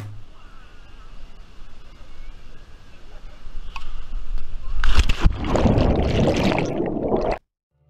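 A person jumping feet-first into a small spring pool: a sharp splash of entry about five seconds in. Then about two seconds of muffled bubbling and churning heard from underwater, which cuts off abruptly.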